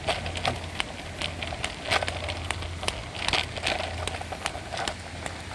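Footsteps on a wet paved path, heard as irregular crackling clicks over a low steady rumble.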